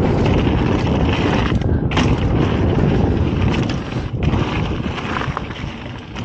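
Wind buffeting the camera microphone over the rumble of a mountain bike's tyres on a dirt trail, with sharp knocks and rattles from the bike over bumps.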